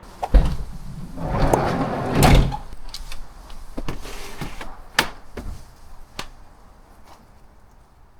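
A run of sharp knocks and clunks, with a stretch of scraping and rustling from about one to two and a half seconds in, then a few scattered clicks that die down near the end.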